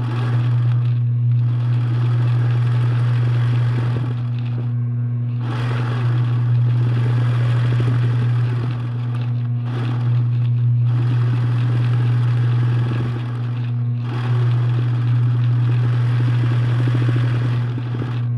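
A steady low hum runs throughout, under irregular rustling and scraping that pauses briefly several times.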